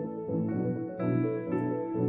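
Instrumental background music with held notes, changing chord about a second in.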